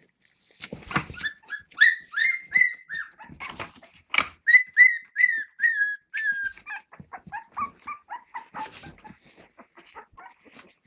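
Australian Cattle Dog puppies about 17 days old squealing and whimpering in a quick run of short, high cries that drop in pitch at the end. After about six and a half seconds the cries turn lower and shorter, with knocks and rustling among them.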